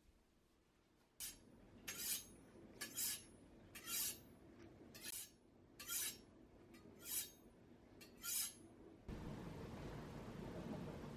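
A series of about eight short, sharp clinks, roughly one a second, like dishes or glassware being handled and set down. About nine seconds in they stop, and a steady low rumble of room noise takes over.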